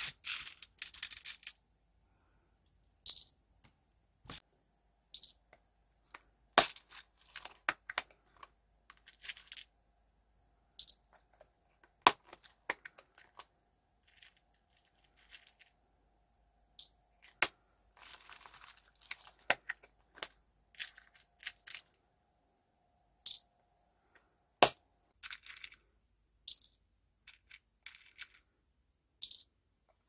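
Small plastic beads and charms being placed into resin shaker frames: sparse light clicks and taps, several dozen in all, with short quiet gaps between them.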